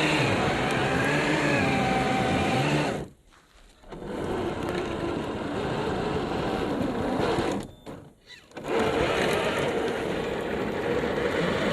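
Traxxas TRX-4 G500 RC crawler's electric motor and gear drivetrain whining, the pitch wavering up and down with the throttle. The sound drops away almost to nothing twice, about three seconds in and again around eight seconds in, then picks up again.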